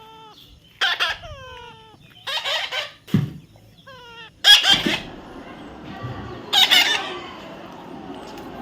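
Baby parrot squawking: four harsh screeches about a second and a half apart, with short falling whistled chirps between them.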